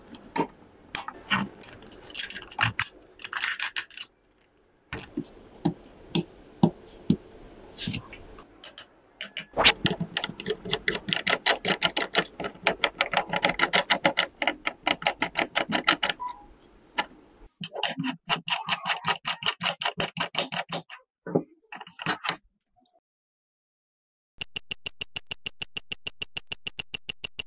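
Close-up handling of a Gigabyte AORUS Z590I mini-ITX motherboard: fingers tap and click on its plastic and metal parts. A small screwdriver then works the screws of its heatsink cover in fast runs of clicks. About 24 seconds in, an even, rapid ticking starts.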